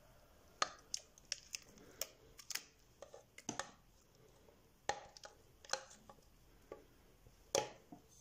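A silicone spatula scraping and tapping against a metal mixing bowl while thick milk pudding is pushed out of it, giving a dozen or so irregular clicks and knocks, the loudest about half a second in, near the middle and near the end.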